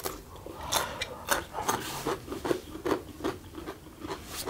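Close-miked eating sounds: chewing and wet mouth clicks and smacks as a piece of boiled egg is bitten and chewed, coming in short irregular clicks about three or four times a second.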